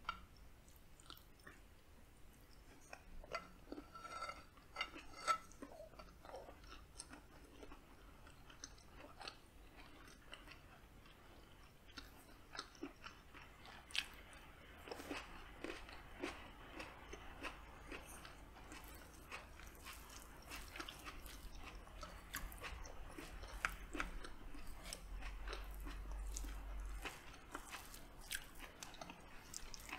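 Close-up eating sounds: a mouthful of rice and beans chewed with wet mouth noises and small crunches, and about halfway through a cherry tomato bitten into. In the first few seconds there are light clicks of a wooden spoon and fork against a glass plate.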